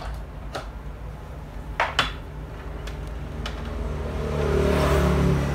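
A few sharp clicks and taps of multimeter test leads and tools being handled on the bench. From about four seconds in, the noise of a passing motor vehicle swells up over a steady low hum.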